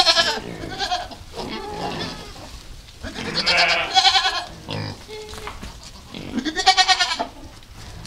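Goats bleating repeatedly, three loud, wavering bleats and fainter ones between them.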